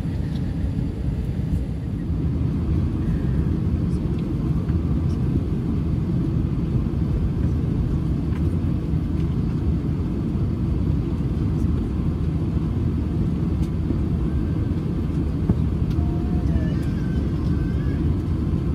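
Steady low rumble of an airliner's noise around an Airbus A320 before departure.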